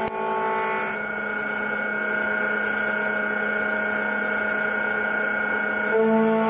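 Mazak Integrex i-200 multitasking machine cutting gear teeth on a steel hub: a steady whine of several tones that shifts about a second in and again near the end.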